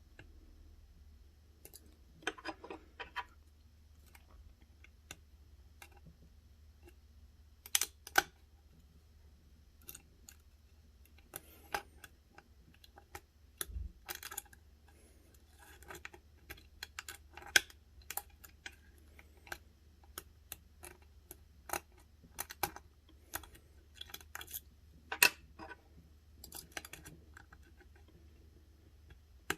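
Irregular small metallic clicks and ticks of a lock pick and tension wrench working the pins of a six-pin pin-tumbler challenge lock, coming in scattered bursts as pins are lifted and set.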